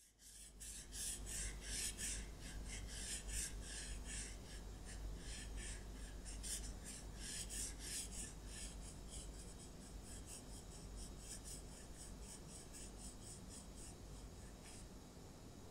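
Pen or marker scratching across a plastic face mask in quick repeated strokes, about three to four a second, stopping abruptly near the end.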